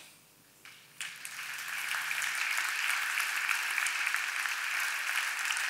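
Audience applauding: the clapping starts about a second in after a brief hush, builds quickly and then holds steady.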